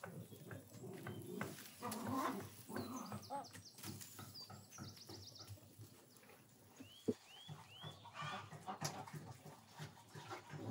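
Farmyard sounds: birds chirping, including a run of four short rising-and-falling chirps midway, with a goat calling and a sharp tap about seven seconds in.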